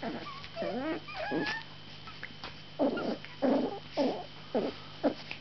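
Two 45-day-old puppies play-fighting and vocalising: high, squeaky whines that slide up and down in the first second and a half, then a run of five short, gruff yaps about half a second apart.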